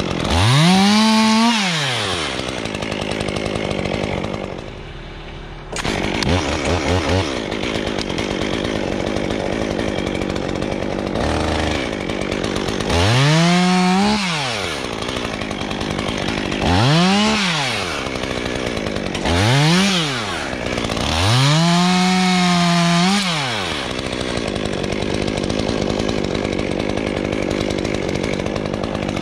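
Stihl top-handle chainsaw revved up and let back down six times while cutting spruce limbs, its pitch climbing and falling each time. It idles between the cuts, with a brief drop in level about five seconds in.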